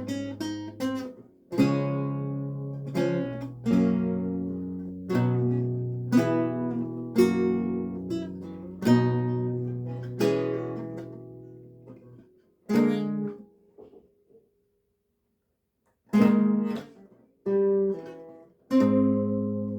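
Renaissance lute played solo, plucked chords and single notes ringing and dying away. The playing breaks off for about two seconds past the middle, then starts again.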